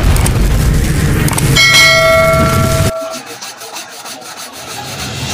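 Intro sound effect: a rumbling boom with a chiming bell, like a notification ding, ringing from about a second and a half in. It cuts off abruptly about three seconds in, leaving a fainter rapid crackle.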